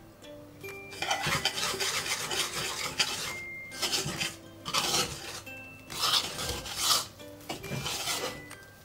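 Wire whisk scraping and stirring in a wooden bowl in repeated rough strokes, mixing sifted rice flour into a wet batter.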